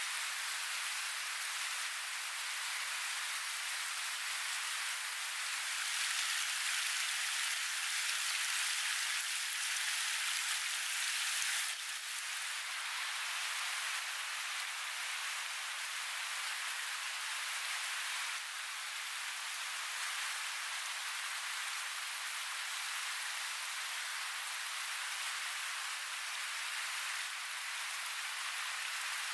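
Steady rushing of a shallow river running over rocks, an even wash of water noise with no low rumble, dropping a little about twelve seconds in.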